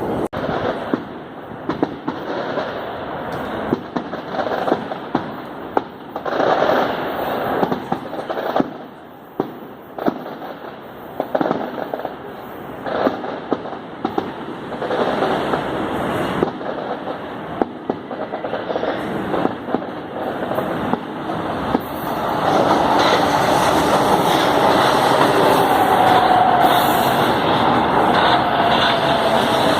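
São Paulo Metro train running through the station: a string of sharp clacks and knocks from the wheels and rails, then the train noise grows louder about two-thirds in, with an electric motor whine that falls in pitch as the train slows.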